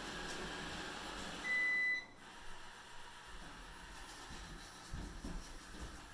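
Kyvol E20 robot vacuum running with a steady hiss, then a single high electronic beep lasting about half a second, about two seconds in, after which the running noise stops. A few faint low knocks follow.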